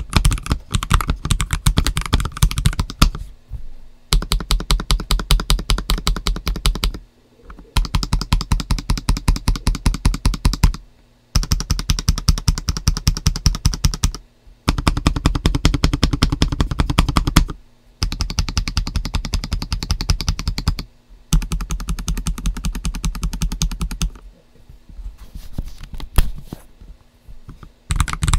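Typing on a stock GAS67 mechanical keyboard with Akko Starfish switches and Terra PBT dye-sub keycaps, all parts unmodded. Rapid keystrokes come in runs of a few seconds, broken by short pauses. The last few seconds are lighter and more scattered.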